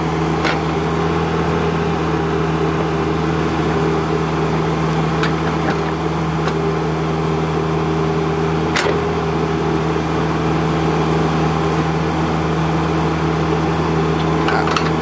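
A John Deere mini excavator's diesel engine runs steadily at a constant pitch while it digs a trench. A few faint, brief clicks are heard over it.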